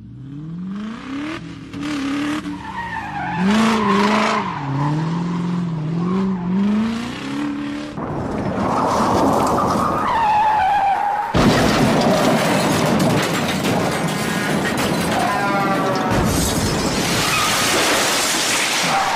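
Car sound effects: an engine revving up and down, then tyres screeching, and about eleven seconds in a sudden crash followed by a long rush of noise.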